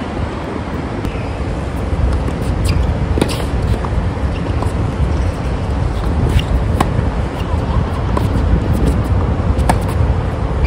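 Tennis rally on an outdoor hard court: sharp racket-on-ball hits every second or few seconds, over a steady low rumble.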